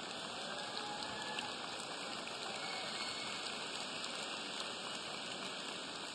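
Large audience applauding steadily, with some laughter in the first couple of seconds.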